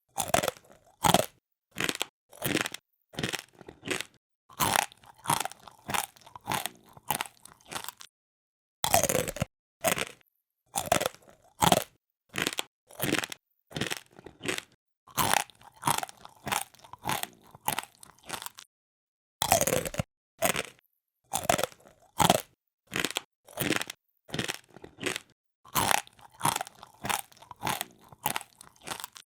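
Close-up crunching of crisp food being chewed, a steady run of sharp crunches at about two a second, broken twice by a short silence.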